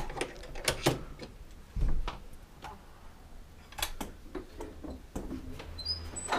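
Short metallic clicks and rattles of a lock being worked on an old wooden door, with a low thump about two seconds in. Near the end the door is pulled open.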